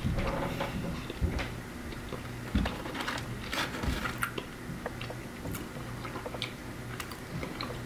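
A person chewing crinkle-cut fries close to the microphone, with scattered small wet clicks and crunches of the mouth.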